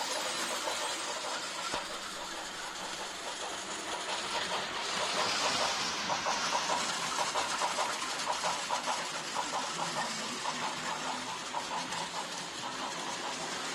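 Battery-powered Plarail toy train running on plastic track: a steady whirring hiss from its small motor and gears, with rapid clicking from the wheels on the track. It is loudest about five to seven seconds in, as the train passes close.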